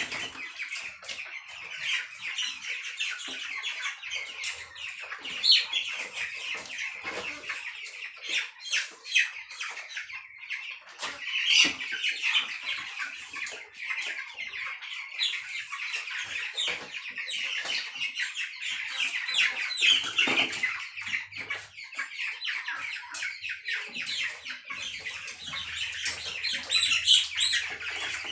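A flock of broiler chickens peeping and chirping continuously, with a few sharp knocks and rustles as birds are caught from the cages and put into a plastic crate.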